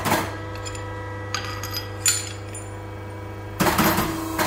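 Light metal clicks and clinks of hand tools working on a monotube shock absorber clamped in a shock press, growing into a quick clatter of metal near the end. A steady low hum runs underneath.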